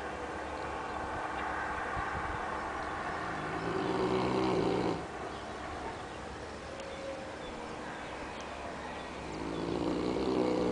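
Neapolitan mastiff snoring loudly in its sleep: a deep snore about midway, another starting near the end, and quieter breathing between them.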